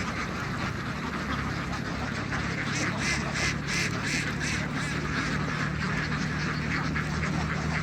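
A large flock of domestic ducks quacking, a dense chorus of many overlapping calls, with a run of louder quacks about three seconds in. A faint steady low hum lies underneath.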